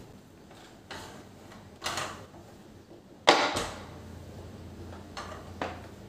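Cloth rubbing over a glass stovetop in short wiping strokes, with one sharp knock about three seconds in, the loudest sound.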